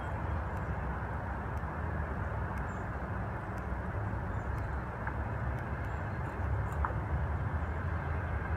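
Steady outdoor background noise, a low rumble with a hiss over it, and a few faint scattered ticks.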